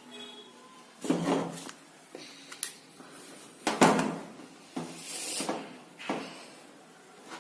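Objects being handled on a hard surface: five or six separate knocks and short scrapes.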